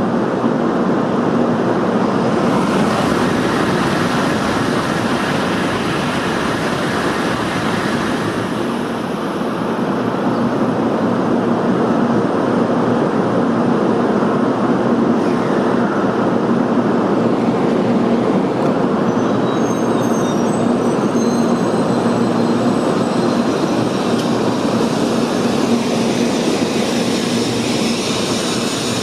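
Tōkaidō Shinkansen train running through the station past the platform: a loud, steady rushing noise with a low hum.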